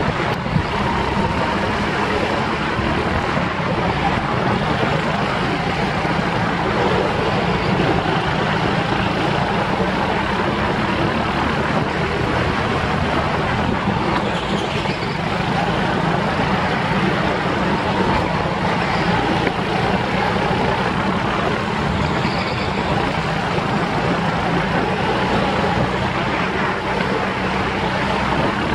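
Go-kart engine running steadily under throttle, heard from onboard the kart, a continuous drone with no pauses.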